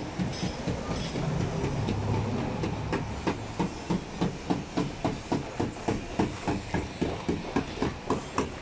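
Rapid, evenly spaced knocking, about three to four knocks a second, over a low hum that fades after about two seconds.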